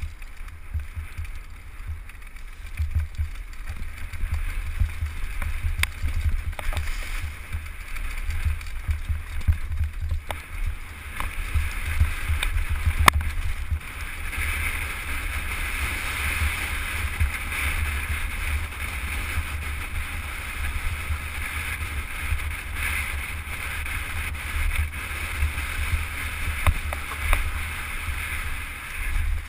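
Wind buffeting the microphone of a camera riding on a downhill mountain bike as it runs down a dry dirt and grass trail, with the steady rattle and rolling noise of the bike and a few sharp knocks along the way.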